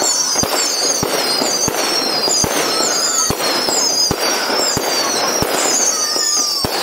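Fireworks display: a rapid series of sharp bangs, about one every two-thirds of a second, under high wavering whistles that fall in pitch, over a steady crackle.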